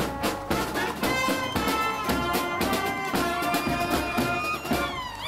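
Mounted band on horseback playing brass horns and a bass drum, with steady drum beats under the tune and a sliding tone near the end.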